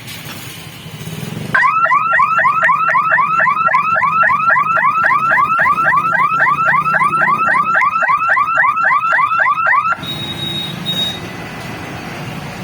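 An electronic warning siren sounds rapid rising whoops, about four a second, over a low steady rumble. It starts abruptly about one and a half seconds in and cuts off suddenly at about ten seconds.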